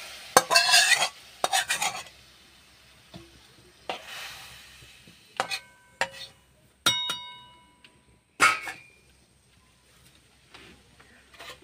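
Metal spatula stirring pineapple pieces in sugar syrup in a metal kadai. A short burst of sizzling comes near the start. Several sharp, ringing clinks of the spatula striking the pan follow, and the loudest comes about eight seconds in.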